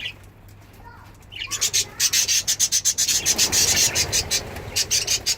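Budgerigars nibbling and tearing at mint leaves: a dense, rapid rustling and crunching that starts about one and a half seconds in, after a short budgie chirp at the start.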